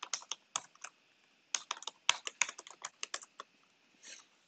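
Typing on a computer keyboard: a quick run of key clicks, a short pause, then a longer run of keystrokes.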